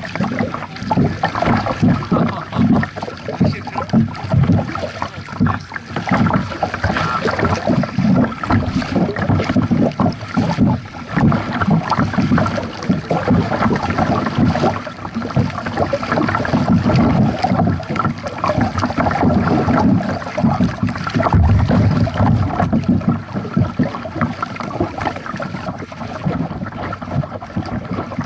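Lake water splashing and sloshing close to a kayak-mounted microphone as kayaks are paddled, with wind buffeting the microphone. The sound is a continuous, irregular rush with no steady rhythm.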